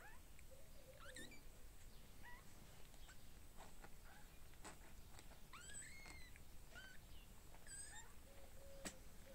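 Young kittens squeaking and mewing faintly: a scattered series of short, high, chirping cries, some rising and some falling in pitch, with a few soft clicks among them.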